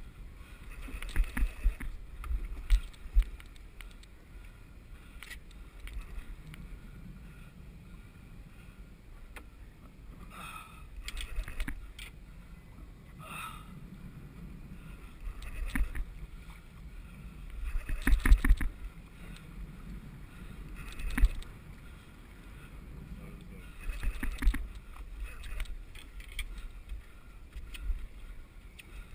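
Wind buffeting the microphone and water slapping against a small boat's hull, with scattered short knocks and handling sounds; the loudest is about 18 seconds in.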